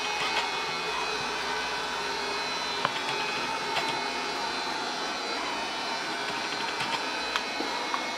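CyberBay robotic vacuum cleaner running steadily, a continuous whir from its motor and brushes, with a few faint clicks.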